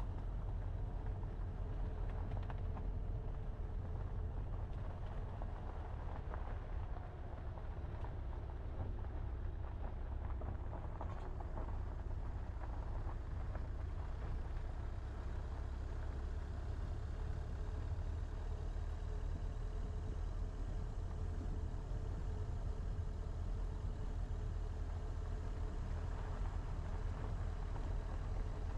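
Car driving steadily along an unpaved dirt road: a continuous low rumble of the engine and tyres on the packed earth, with a faint steady tone running through it.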